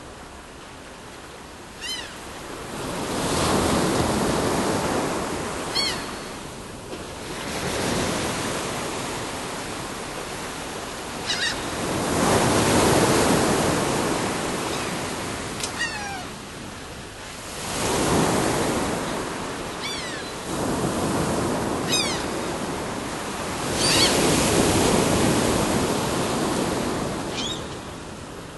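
Sea waves washing onto the shore in slow swells every few seconds, with gulls giving short, mewing calls throughout.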